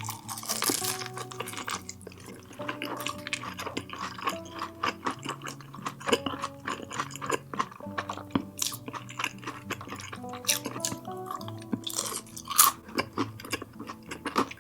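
Close-miked chewing and wet mouth sounds of someone eating, a run of short clicks and smacks, over soft background music.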